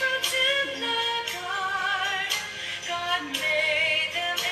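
A woman singing a prayer song over musical accompaniment. She holds long, wavering notes, and a beat strikes about once a second.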